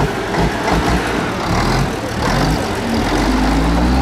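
Tractor engine running close by, its pitch rising as it revs up about two and a half seconds in, then holding a steady, heavier run near the end.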